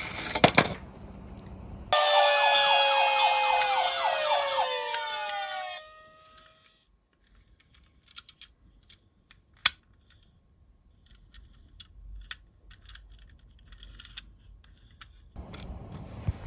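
A toy emergency-vehicle siren sounds for about four seconds as several stepped tones, then glides down in pitch and stops. It is preceded by a short noisy stretch with a couple of sharp clicks. Faint scattered clicks follow, with one sharp click near the middle.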